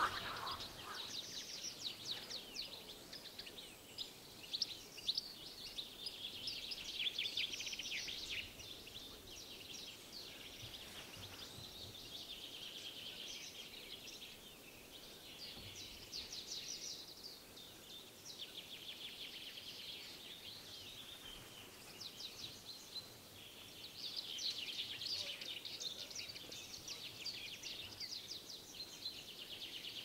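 Songbirds singing: phrase after phrase of fast, high trills and chirps with short gaps between, over a faint steady outdoor hiss.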